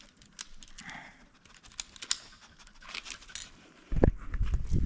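Scattered small clicks and rustling, then heavy low thumps from about four seconds in.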